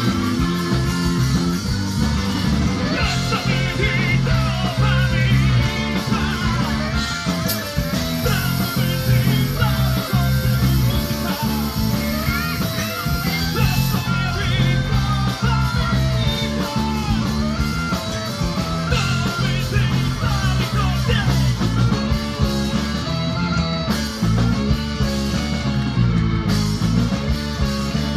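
A live folk-rock band playing an instrumental passage: electric guitar and bass guitar under a wavering lead melody, with a clarinet in the line-up.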